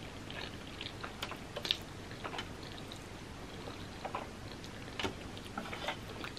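Slurping and chewing black bean noodles, with scattered light clicks of metal chopsticks against a metal sheet pan.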